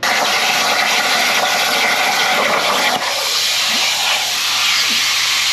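Arclight CNC plasma table's torch cutting a bracket from metal plate: a loud, steady hiss of the plasma arc and air, dipping briefly about halfway through.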